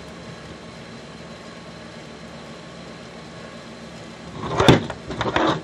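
Steady hum of a room air conditioner. About four and a half seconds in, a quick run of sharp knocks and clatter as the wooden ruler and the plastic action figure are handled on the tabletop.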